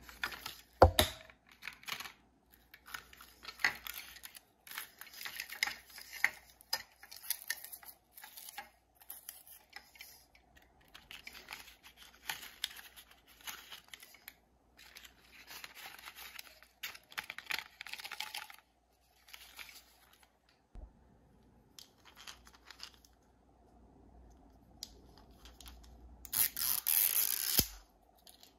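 Paper wrapper and thin cardboard packaging of a Mini Brands toy capsule rustling, crinkling and tearing as it is unwrapped by hand, in short bursts with pauses between. A sharp knock comes about a second in, and a louder burst of rustling near the end.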